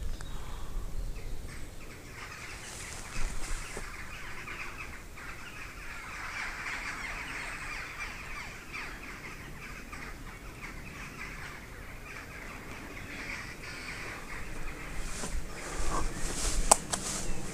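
Crows cawing, with other birds calling, and a few sharp clicks near the end.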